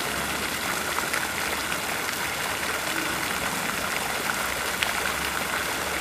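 Pond fountain's jets falling back and splashing steadily onto the water surface.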